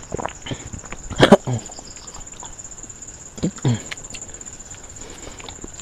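Close-miked eating sounds from a person eating by hand: chewing and lip-smacking in a few short, irregular bursts, the loudest about a second in and another about three and a half seconds in. A faint, steady high-pitched whine runs underneath.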